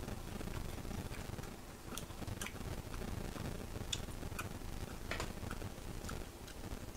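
Pork belly grilling on an electric grill pan, its fat spitting in irregular sharp pops and ticks.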